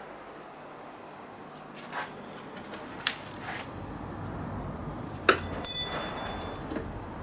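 Scattered clicks and knocks of metal parts and tools being handled, with one sharp metallic clink about five seconds in that rings briefly with several high tones.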